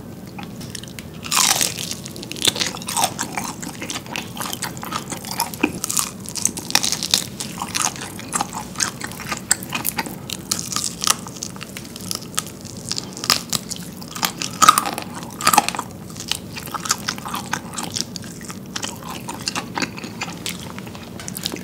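Close-miked crunching bites and chewing of fried chicken with a thin, crispy batter: a loud crunchy bite about a second and a half in, then steady crackling chewing with more loud crunches around the middle.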